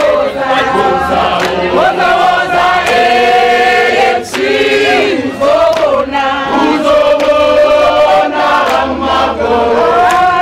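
A crowd singing together, many voices on long held notes that move up and down in a chant-like song; loud throughout.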